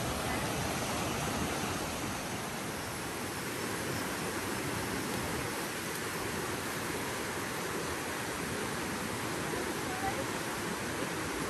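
Steady rush of a rocky stream running over rapids.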